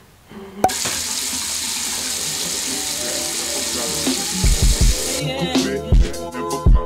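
A sink tap is turned on with a click about half a second in and runs steadily into the basin. Music with a deep bass beat comes in about two-thirds of the way through and plays over the running water.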